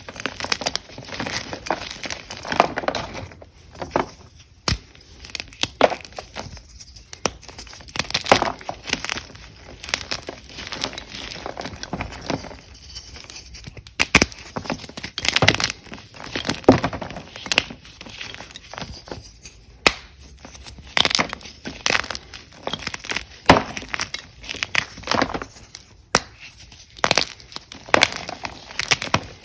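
Ader gym chalk being crushed and crunched by hand, with irregular sharp crunches and crumbles following one another throughout.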